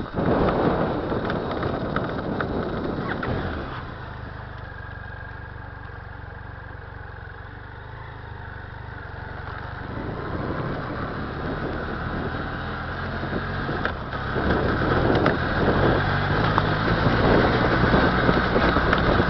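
BMW F 800 GS parallel-twin engine running, the level dropping for a few seconds in the middle and then building again. Repeated knocks run through the second half: the clanking from the rear end that the owner is chasing, which BMW calls normal chain noise.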